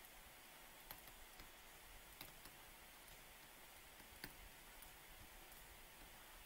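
Faint, irregular clicks of a pen stylus touching down on a tablet surface during handwriting, over a low steady hiss.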